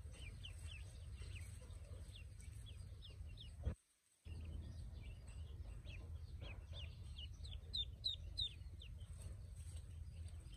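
Newly hatched Pekin ducklings peeping: many short, high, downward-sliding peeps overlapping several times a second, a few louder ones around eight seconds in, over a low steady rumble. The sound cuts out completely for about half a second just before four seconds in.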